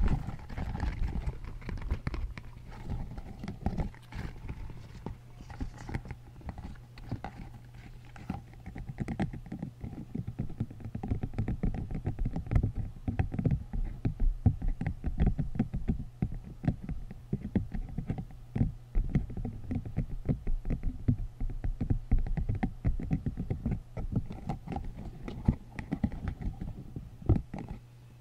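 Spiky green silicone tube handled right on a foam-covered microphone: a dense, irregular run of soft rubbery taps and crackles as the spikes are squeezed and rubbed against the mic, over a steady low hum.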